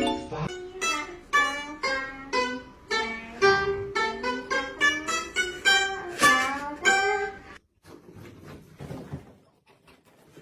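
A melody of plucked notes on a guitar-like string instrument, about three notes a second, which breaks off abruptly about three quarters of the way through and leaves only faint sound.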